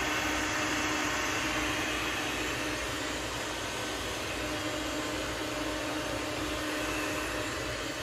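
SEGOO Rotopus M2 robot vacuum running as it vacuums and mops a hardwood floor: a steady whir from its suction motor with a low hum under it, getting slightly quieter near the end.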